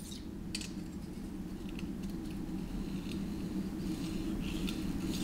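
Faint light scrapes and ticks of a thin steel feeler gauge being slid under a straight edge across a 700R4 transmission pump body, the 0.002-inch gauge going through with slight drag. A steady low hum lies underneath.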